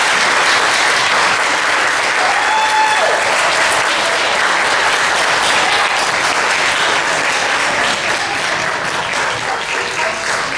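Audience applauding steadily, with a single voice briefly heard above it; the clapping eases off a little near the end.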